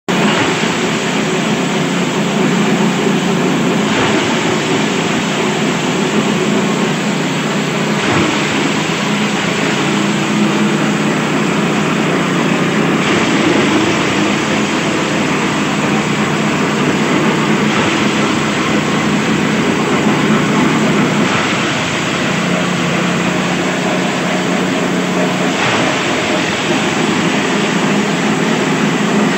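Forage chopper for livestock feed, driven by a 5.5 hp engine, running steadily under load with a constant engine drone. Green corn stalks and grass are being fed in and shredded by its blades.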